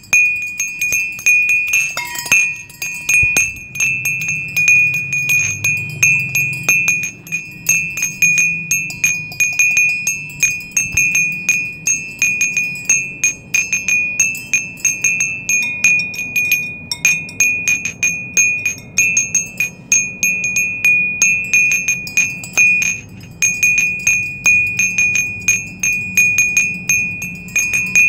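Wind chimes tinkling continuously: many rapid, irregular light strikes over a steady high ringing tone.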